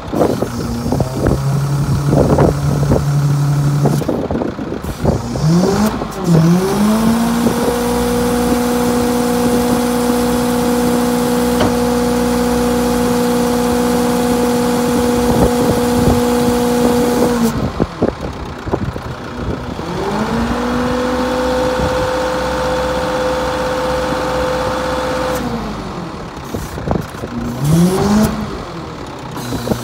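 Mitsubishi Canter truck engine running and revving up to a steady higher speed to drive the UNIC crane's hydraulics while the boom and hook are worked. It holds the higher speed for about ten seconds, drops back, revs up again for about five seconds and climbs once more near the end, with scattered clanks early on.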